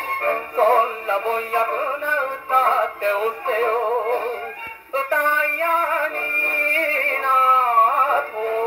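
A portable acoustic gramophone playing a 1958 Japanese popular-song 78 rpm record through its soundbox with a medium-tone steel needle: a wavering melody line over accompaniment. The sound is thin and midrange-only, with faint record hiss.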